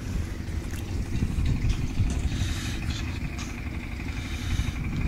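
An engine running steadily: a low rumble, with a faint thin high whine running through it from about a second and a half in.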